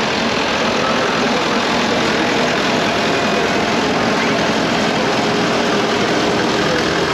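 Engine of a vintage Claas combine harvester running steadily as the machine drives slowly past at close range.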